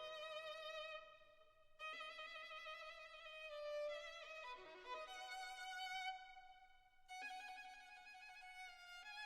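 Background music: a violin playing slow, held notes with vibrato.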